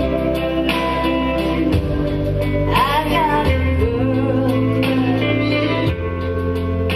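Live band music with guitar; a woman's singing voice comes in about three seconds in.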